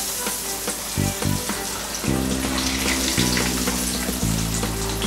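Breaded chicken pieces deep-frying in hot oil in a stainless steel pan: a steady sizzle with constant small crackles. Background music with changing low chords comes in about two seconds in.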